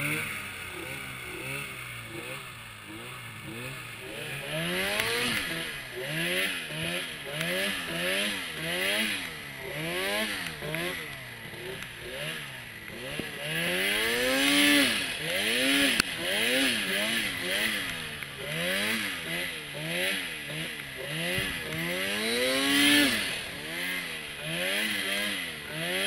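A turbocharged Arctic Cat snowmobile engine, heard from the rider's seat, revving up and falling back over and over, about once a second, as the sled is worked through deep powder. It revs highest twice, once near the middle and once near the end.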